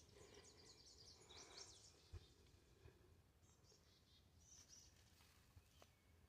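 Faint birdsong: runs of short, high chirps from small birds through the first two seconds and again a little after halfway, over near silence. A soft low thump about two seconds in.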